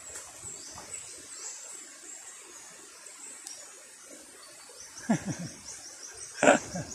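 Faint outdoor background with a quick run of short high chirps near the end, and two brief sounds falling in pitch about five and six and a half seconds in.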